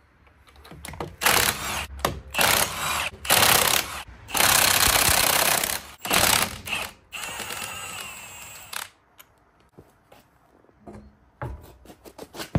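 Impact wrench hammering in several short bursts, the longest about a second and a half, as bolts are run out during removal of a Subaru EJ20 engine; scattered light clinks of tools and parts follow near the end.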